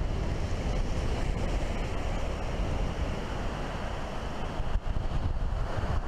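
Wind buffeting the microphone over the steady wash of surf breaking on a beach.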